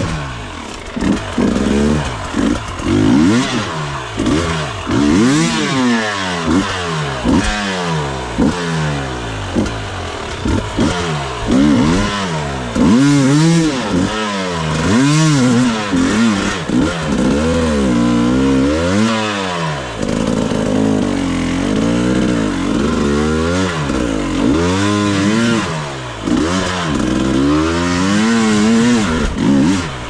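Husqvarna enduro motorcycle engine revved in quick repeated bursts, its pitch rising and falling every second or two, as the throttle is worked at low speed over rough ground.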